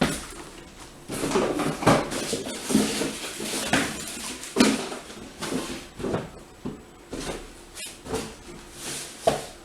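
Rummaging through tools in search of a bigger screwdriver: an irregular run of clinks, knocks and clattering handling noises.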